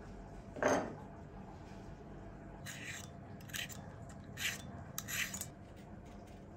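A sharp knock as a bowl is set down on the table, the loudest sound, followed by a stainless julienne peeler scraped down a cucumber in four strokes, roughly one every second.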